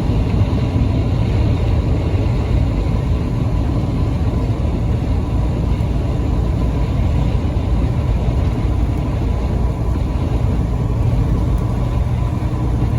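A truck driving, its engine and road noise making a loud, steady low rumble.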